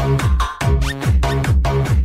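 Electronic dance music with a steady, driving beat.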